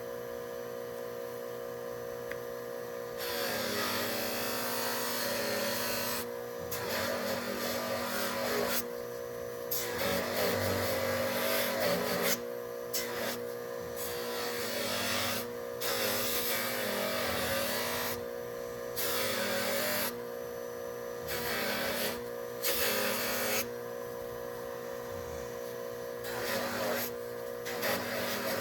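Repeated bursts of abrasive rubbing or scrubbing, each one to three seconds long, starting and stopping over a steady electrical hum.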